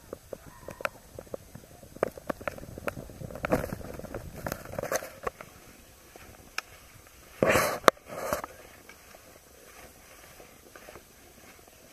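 Skiing heard from a handheld camera: scattered clicks and knocks of handling and ski clatter, then a brief loud rush of skis scraping on snow about seven and a half seconds in, with a shorter one just after.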